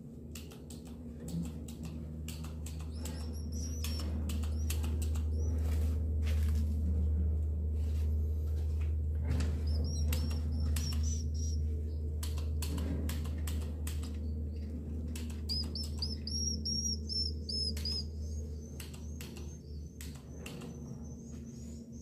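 Edible-nest swiftlets inside their nesting house: a constant stream of sharp clicks and wing flutters, with several bursts of high, thin twittering chirps.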